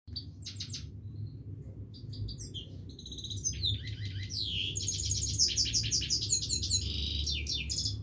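Himalayan goldfinch singing: scattered short chirps at first, then from about three and a half seconds a fast, unbroken twittering run of high notes. A steady low rumble lies underneath.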